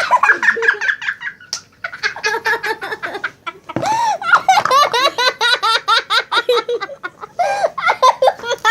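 Children laughing hard, long runs of quick giggles one after another.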